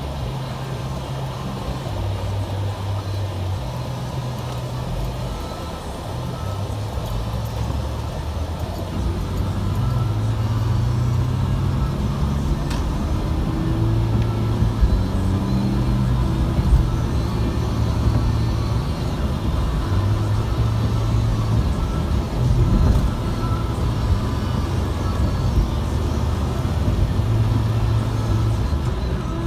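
Steady low rumble of a car driving on a wet road, heard from inside the cabin: engine and tyre noise on rain-soaked pavement, growing slightly louder about a third of the way through.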